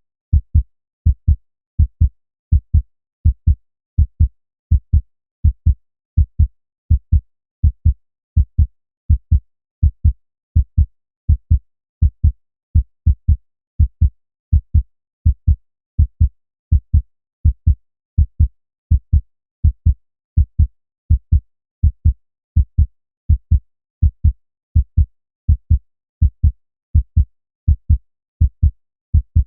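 Human heartbeat: a steady, regular lub-dub, each beat a pair of low thumps, a little over one beat a second.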